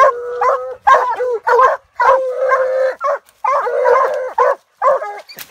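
Walker coonhounds baying treed: a fast string of loud barks mixed with drawn-out bawls, several calls a second with brief breaks. It is the tree bark of hounds holding raccoons up a tree.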